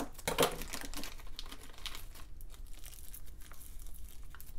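Thin plastic packaging bags crinkling as steering-stem bearings and seals are unwrapped by hand, with small rustles and ticks. The crinkling is busiest in the first two seconds, then thins out to a few faint ticks.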